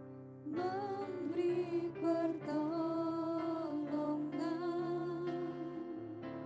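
Female vocal duet singing a worship song into microphones over sustained instrumental accompaniment. The voices come in about half a second in, with a wavering vibrato on held notes.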